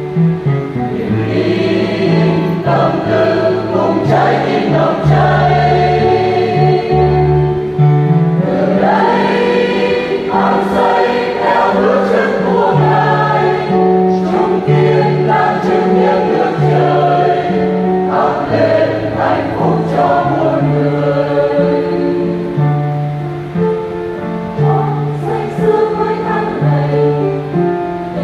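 A choir singing a Vietnamese Catholic hymn over instrumental accompaniment, with a bass line stepping from note to note.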